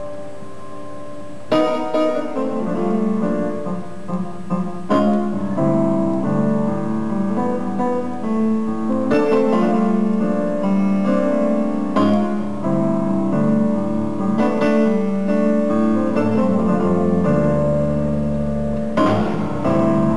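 Live jazz grand piano playing full, ringing chords, each struck hard every few seconds and left to sustain. Low bass notes come in strongly near the end.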